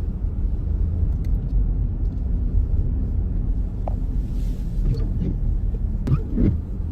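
Steady low rumbling noise, loud and unbroken, with a few faint knocks and clicks over it.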